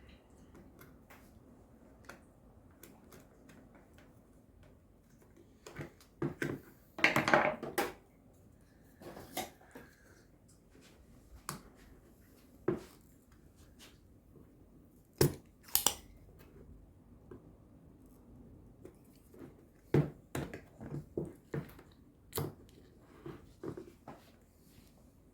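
Hand tools and small parts handled at a workbench during circuit-board repair: scattered sharp clicks and taps, with a louder rough scraping rustle about seven seconds in.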